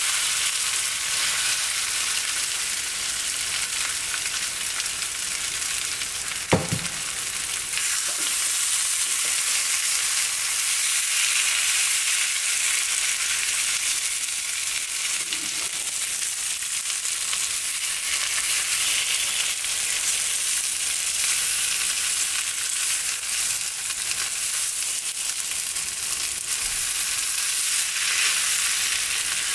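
Mashed potatoes frying in ghee in a pan, sizzling steadily as their water cooks off. A single sharp knock about six and a half seconds in.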